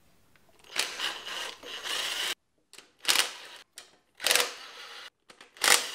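Ryobi cordless power driver running a socket to spin out 12 mm bolts from the engine's water block, in bursts: one lasting about a second and a half with a steady whine, then three short runs.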